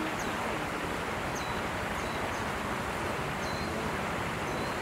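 Steady outdoor background noise with short, high bird chirps about once a second.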